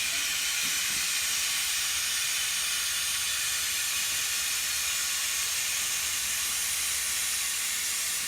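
Helium gas hissing steadily from its supply as it fills a plastic bag wrapped around a pellet gun, then cutting off suddenly at the end.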